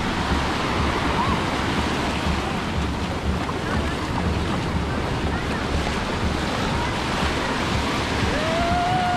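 Small waves breaking and washing up a sandy shore, a steady rush of surf, with wind gusting on the microphone as a low rumble.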